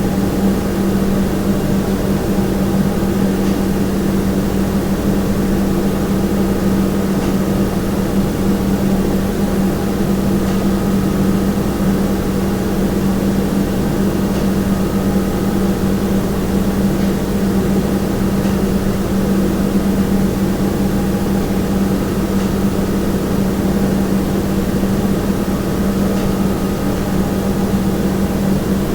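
Kitchen room tone: a steady, unchanging low hum from appliances, with a few fainter higher tones over an even background noise.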